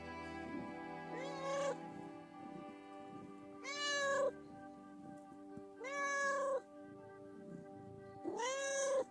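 Ginger tabby cat meowing loudly four times, each call about half a second long and rising then falling in pitch: attention-seeking meows from a cat begging to be petted.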